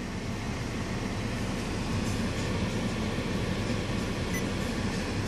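Steady low noise inside the cabin of a 2015 Acura RLX on the move, with road and engine noise and no distinct events.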